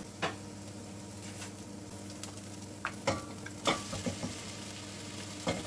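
Onions sizzling steadily in hot oil in a stainless steel pot. From about three seconds in, a few short knocks and clicks come as marinated chicken is tipped in from a plastic tub.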